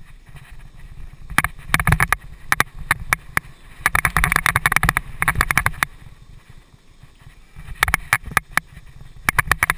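Mountain bike rattling and clattering over a rough dirt trail, in bunches of sharp knocks and clicks over a steady low rumble.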